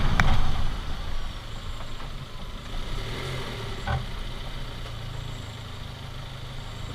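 Renault Duster 4x4 running at low speed or idling: a steady low engine hum that drops in level after the first half-second. A sharp click comes near the start and a single knock about four seconds in.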